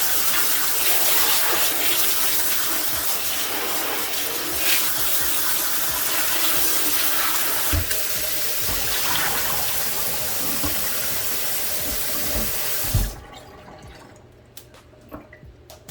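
Tap water running into a sink as humidifier parts are rinsed under it, with a few dull knocks. The water cuts off suddenly about 13 seconds in, leaving only faint small clicks.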